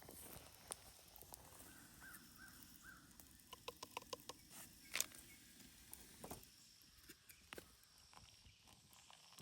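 Faint wild animal calls in a quiet forest: three short arched chirps, then a quick run of about six pulsed calls a little later, with a few scattered sharp clicks and snaps.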